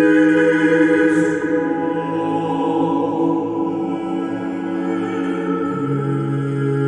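Slow ambient music of long held chords with choir-like sustained voices; the lower notes shift to a new chord about six seconds in.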